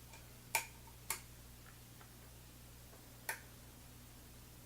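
Metal hook pick clicking against the pins inside a Medeco Original lock cylinder held under tension: three sharp clicks and a few fainter ticks, spaced unevenly, as the pins are probed to check whether each driver pin is set.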